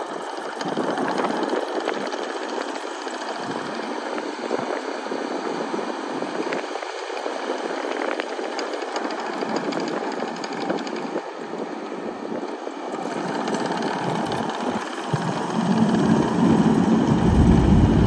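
Diesel engine of a Kubota SVL97-2 compact track loader running steadily. Near the end it gets louder, with a deeper rumble, as the machine moves off.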